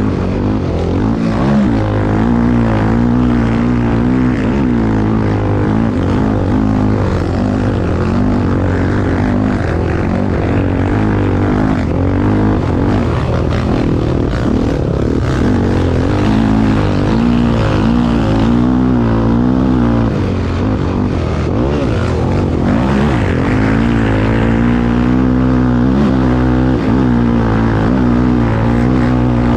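Race vehicle's engine running continuously under load, its pitch wavering slightly up and down without ever dropping to idle.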